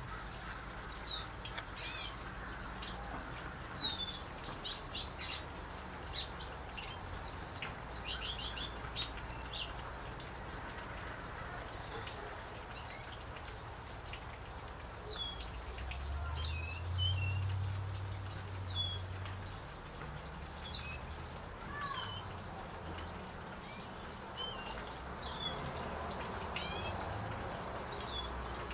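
Lesser goldfinch singing: a long, rambling run of high twitters, chips and short slurred whistles, with a brief very high note that comes back every couple of seconds.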